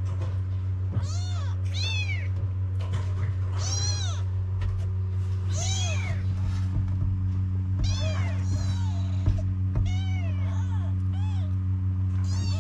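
A litter of young kittens meowing over and over, high-pitched cries that rise and fall, often overlapping, as they call for their mother to nurse them. A steady low hum runs underneath.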